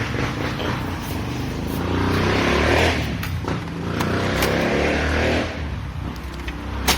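Motor vehicle running, its engine and road noise swelling twice over a few seconds, with a sharp click near the end.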